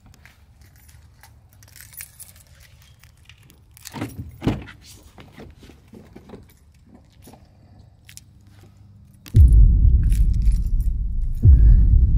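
Inside a moving car: a quiet stretch with a few faint knocks, then about nine seconds in a loud low rumble of road and wind noise starts suddenly.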